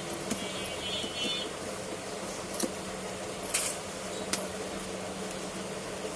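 A few scattered small clicks and taps of phone parts and tools being handled on a workbench, over a steady background hum.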